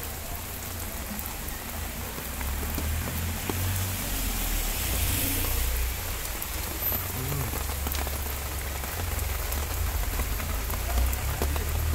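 Steady rain falling on wet ground and concrete, with rainwater running along a concrete drainage channel into a recharge-pit grating, over a steady low rumble.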